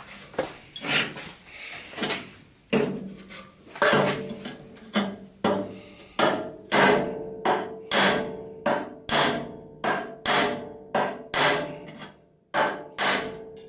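Flat-faced hammer striking the rusty steel bed-frame rail of a 1966 VW double cab, about two blows a second, each with a short metallic ring. The first blows are lighter, and there is a brief pause near the end. The blows are flattening a high spot left by a factory spot weld.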